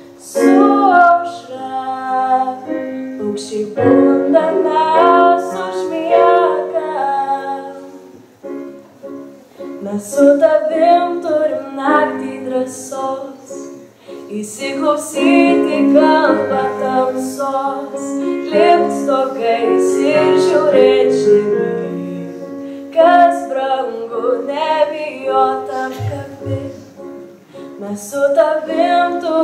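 A young woman singing a slow song through a handheld microphone over instrumental accompaniment, holding notes with vibrato.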